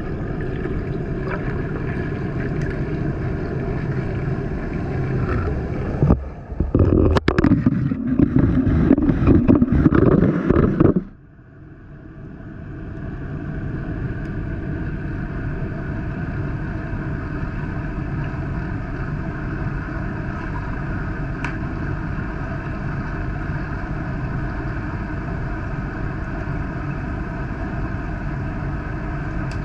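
Underwater sound in a swimming pool, picked up by a GoPro: a steady hum with several held tones. From about six to eleven seconds it gives way to loud, irregular rumbling and knocks, like the camera being handled and moved through the water; then the sound drops off suddenly and slowly builds back to the steady hum.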